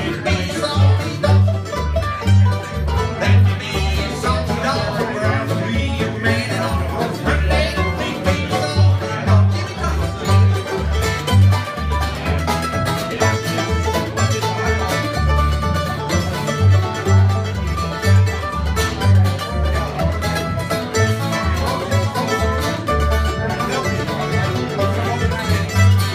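Acoustic bluegrass band of banjo, mandolin, acoustic guitar and upright bass playing an instrumental passage with no singing, the bass notes pulsing on a steady beat under the plucked strings.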